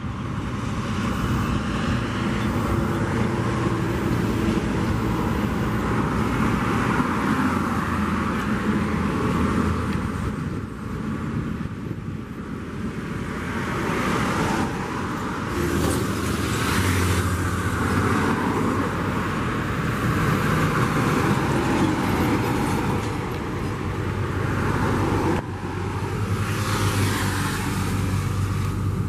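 Heavy diesel truck engines running as bitrem grain trucks with Volvo FH tractors drive past on a highway, with tyre and road noise swelling and fading with each pass. The sound changes suddenly near the end, where one shot cuts to the next.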